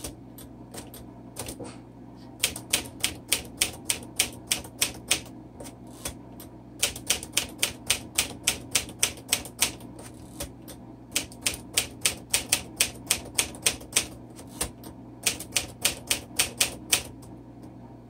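Typing on a 1951 Smith Corona Silent manual typewriter: runs of keystrokes at about three or four a second, broken by short pauses. The strikes are not as loud as on most typewriters.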